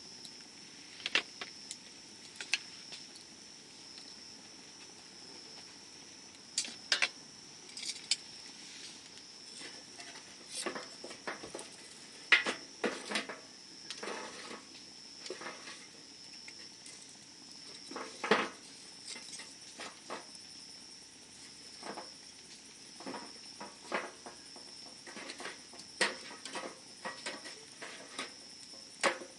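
Campfire crackling, with irregular sharp pops and snaps from the burning wood, the loudest about twelve and eighteen seconds in. Behind it runs a steady high insect trill.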